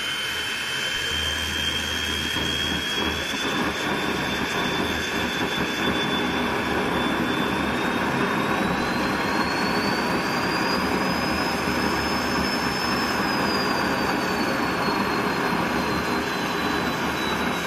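Turbocharger-based homemade gas turbine jet engine running, a steady rushing roar of combustion and airflow with a high turbine whistle on top. Partway through, the whistle climbs in pitch as the turbo spools up, holds, then eases back down a little near the end.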